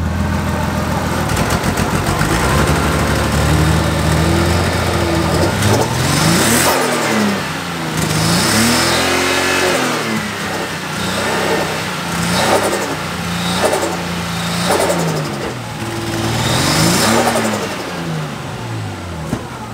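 Six-cylinder car engine idling, then revved repeatedly in short blips, its pitch rising and falling about eight times. The engine is misfiring: it is not running on all six cylinders, which the owner hopes is a faulty coil pack.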